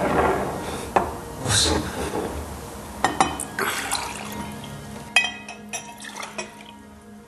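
Water being poured into a glass, followed by a run of light glass clinks in the second half.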